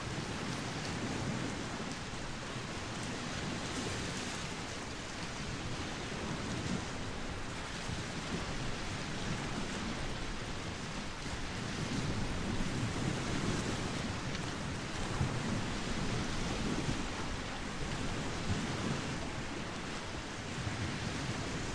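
Steady wind and small waves washing onto a sandy shore, with gusts rumbling on the microphone.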